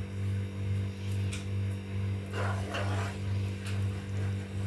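A low steady hum swelling and fading about twice a second, under faint scraping and light clicks from a spoon stirring thick gravy in a nonstick pan, with a longer scrape about halfway through.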